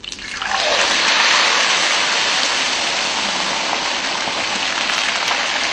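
Whole sea bass dropped into hot oil in a wok, the oil breaking into a loud, steady deep-frying sizzle that starts suddenly and holds. This is the first stage of red-braising: the fish is being fried to set its skin before it is braised.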